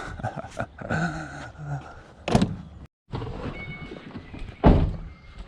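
Two loud thuds about two and a half seconds apart, the second the louder, with faint muffled talk before the first.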